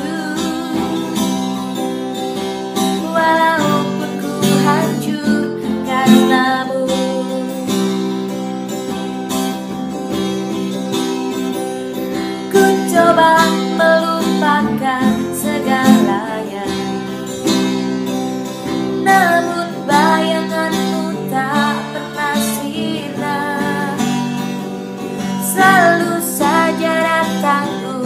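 Acoustic guitar strummed as a song accompaniment, with a voice singing a melody over it in several phrases.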